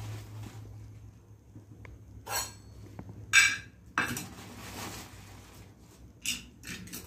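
A few short clinks and clatters of a small steel bowl and kitchen utensils handled on a counter, the loudest about three and a half seconds in.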